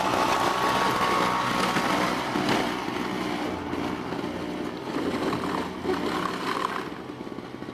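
Small engine of an MTD snowblower running steadily.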